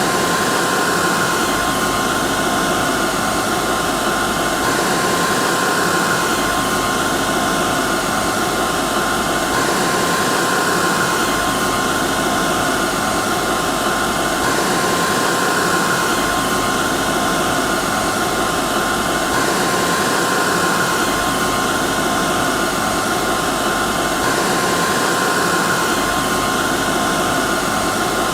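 Hair dryer running steadily: a constant rush of air with a steady whine from its motor. It is a short recording looped, with a faint pattern repeating about every five seconds.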